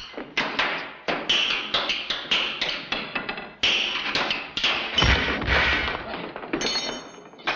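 Hammer and chisel striking the metal end of a large steel tank in quick blows, about three a second, each with a bright metallic ring. About five seconds in comes a heavier low thud as the round end cover comes off.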